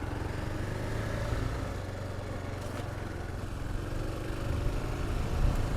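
Single-cylinder dual-sport motorcycle engine running steadily at low revs, getting slightly louder near the end.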